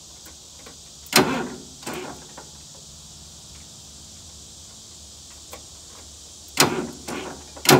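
Sharp metallic clanks and creaks from the old Massey Ferguson 30B loader being worked by hand: two about a second in, and a cluster of three near the end.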